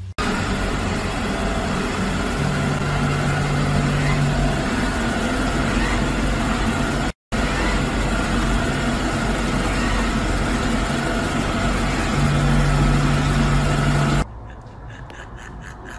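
Samsung robot vacuum running: a loud, steady motor-and-suction noise with a faint steady whine, broken off for an instant about seven seconds in and stopping near the end.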